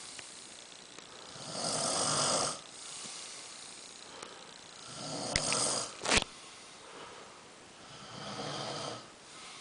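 A sleeping person snoring loudly: three long snores about three seconds apart, with quieter breathing between. A sharp click comes just after the second snore.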